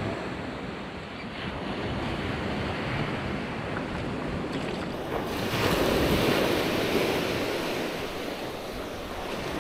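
Gulf surf washing onto the beach, with wind on the microphone. A wave breaks and swells louder about halfway through, then eases off.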